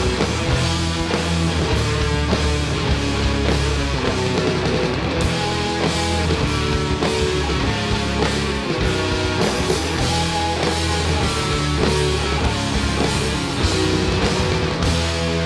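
Rock band playing live: electric guitars over a drum kit, driving on without a break.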